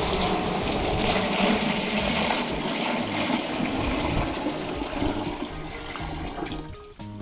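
Steady rushing, churning water.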